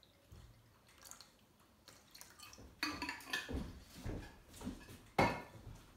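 Water poured from a bottle trickles into a shallow metal pan. About three seconds in, a run of knocks and clatter begins, and the loudest is a sharp knock near the end.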